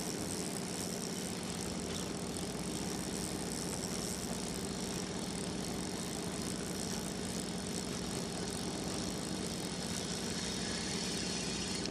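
A fishing boat's engine running steadily, a low even hum with a hiss above it.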